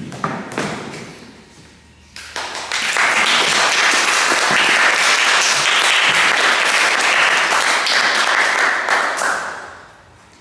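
A thump of a performer falling onto the gym floor, then an audience applauding for about seven seconds, fading out near the end.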